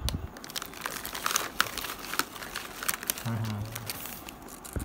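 Plastic packaging crinkling and crackling as hands work open a sealed plastic cookie pouch, with many sharp crackles.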